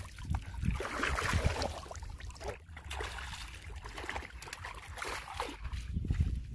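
Water splashing and sloshing around a person's legs as he wades through shallow water, in uneven swishes.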